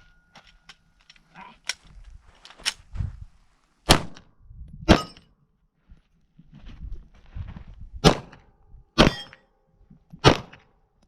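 A string of gunshots, about six loud ones with a few fainter cracks before them, irregularly spaced a second or more apart, with steel targets ringing briefly on the hits.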